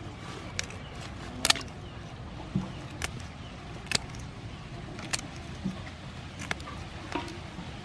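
Kitchen scissors snipping through raw blue crab shell and legs, about seven sharp clicks spaced roughly a second apart, over a steady low rumble in the background.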